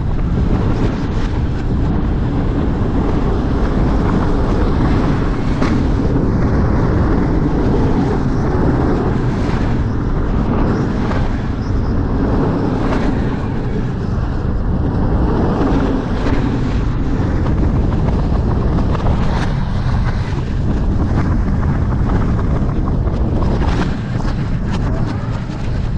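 Roller coaster ride heard from the train: heavy wind buffeting the microphone over the rumble of the Lightning Rod train's wheels on its steel-topped track, with sharp clacks now and then.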